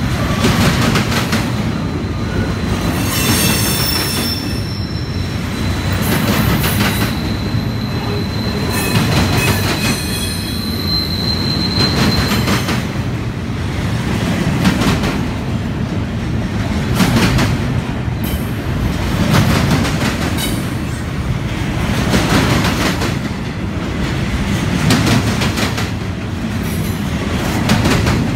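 Double-stack container train's well cars rolling past at close range: a steady rumble of steel wheels on rail, with a clatter roughly every two to three seconds as each set of wheels goes by. A thin high wheel squeal runs from about four to twelve seconds in.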